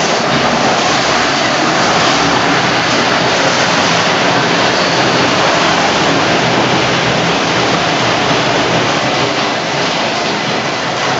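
Weima Spider 1000 shredder running and grinding up bathtubs: a steady, dense grinding noise.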